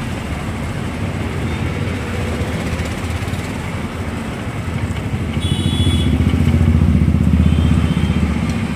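A motor vehicle engine running close by in street traffic, a low pulsing rumble that grows louder from about five seconds in and is loudest near the end.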